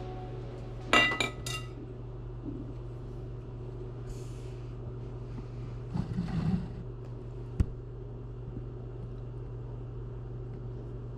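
A steady low hum, with a quick run of light glassy clinks about a second in and a single sharp click a little past the middle.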